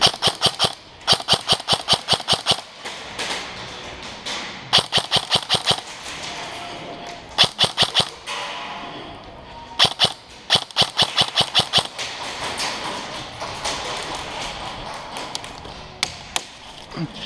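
Airsoft rifle firing repeated rapid bursts of BBs, six or seven runs of quick, evenly spaced cracks in the first twelve seconds, then only shuffling movement.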